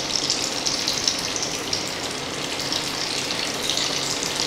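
Hot oil sizzling and crackling in a deep frying pan as vermicelli-coated potato rolls are dropped in one after another, with sharper pops as each piece goes in.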